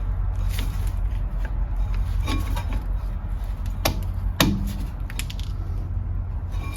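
A few sharp clicks and knocks of metal tools handled against a brake caliper, the loudest about four and a half seconds in, over a steady low hum.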